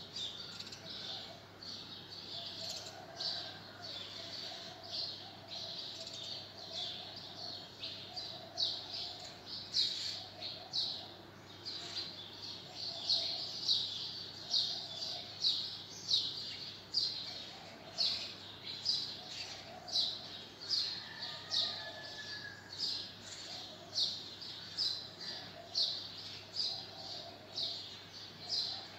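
Graphite pencil scratching on paper in short, repeated strokes while drawing the scalloped edge of a leaf. The strokes grow sharper and more regular, about one a second, about halfway through.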